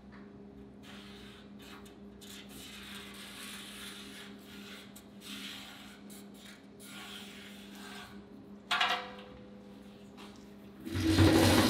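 Marker rubbing along a metal straightedge on the painted steel drum of a cement mixer, marking cut lines, with a short metallic clatter about nine seconds in. Background music with a beat comes in near the end.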